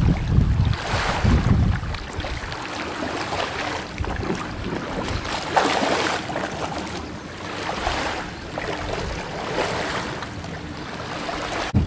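Wind gusting on the microphone, heaviest in the first two seconds, over small waves washing in on the shallow shoreline in repeated surges.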